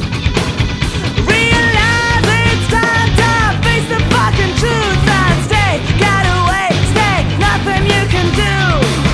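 Noise-rock power trio playing: distorted guitar, bass and drums. About a second in, a high melodic line with bending, sliding notes comes in over the steady bass and drums.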